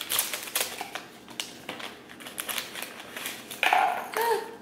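Scissors snipping open a small packet, a string of sharp irregular clicks and crinkles.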